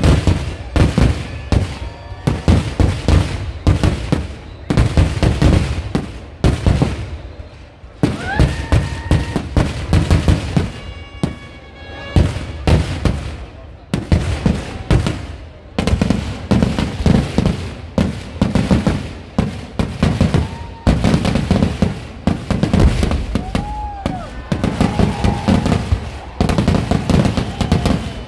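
Kerala temple-festival fireworks (vedikettu): aerial shells and firecrackers banging in rapid, unbroken succession. Crowd voices can be heard beneath the bangs.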